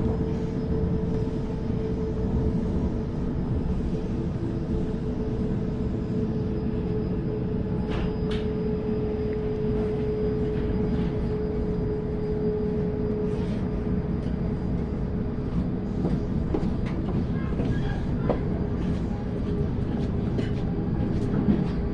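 Sydney Trains Waratah electric train heard from inside the carriage, running along the track: a steady rumble of wheels on rail with scattered clicks. A steady hum fades away a little past halfway through.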